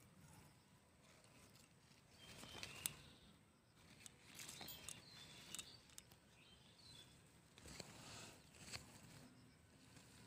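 Faint rustling and scraping of loose soil being scooped by hand into a small pot, in a few short spells, with a sharp click about three seconds in.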